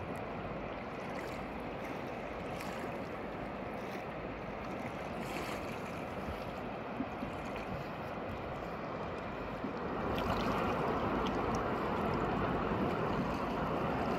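Steady rushing noise with no distinct events, getting louder about ten seconds in.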